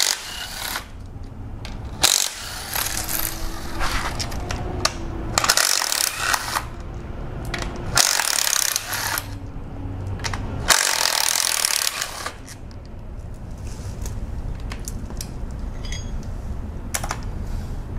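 Small cordless power driver with a 10 mm socket running in several short whirring bursts as it spins out the timing cover bolts of a 2.4 MultiAir engine. Between bursts there are light metallic clinks of bolts being set down.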